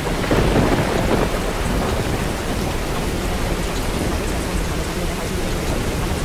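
Rain-and-thunderstorm ambience: steady rain noise with a louder rumble of thunder swelling in the first second or so.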